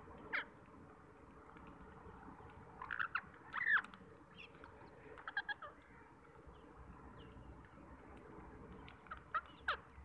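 Rose-ringed parakeets giving short, sharp calls in scattered bursts: one about half a second in, a cluster around three to four seconds, a few more around five seconds, and another group near the end, some falling in pitch.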